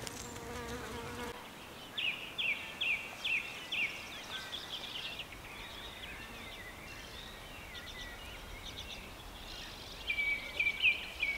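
A bird singing a run of short, high repeated chirps, about two or three a second, for about three seconds and again near the end, over a faint steady background.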